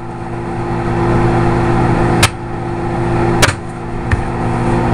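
Microwave oven running with a steady hum as a bag of popcorn heats, with single kernels popping sharply about two seconds and three and a half seconds in and a fainter pop a little later: the popping is just getting under way.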